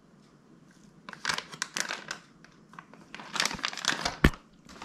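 Clear plastic parts bags of a radio-controlled car kit crinkling as they are handled, starting about a second in, with a single sharp knock near the end.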